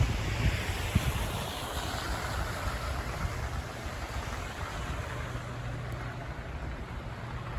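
Blizzard wind buffeting the microphone: a steady rushing noise over a low rumble, with a couple of short thumps in the first second.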